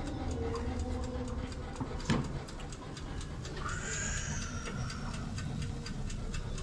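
Mechanical timer of an electric countertop oven ticking steadily and rapidly as it counts down a bake, over the low steady hum of the running oven.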